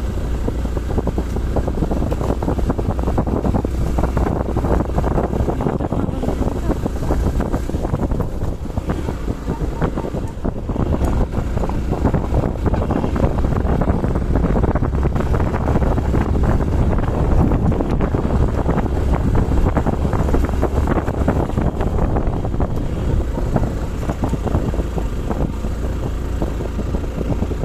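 Vehicle engine and road noise from a moving vehicle on a hill road: a steady low rumble with rough, fluctuating noise on top, and wind buffeting the microphone.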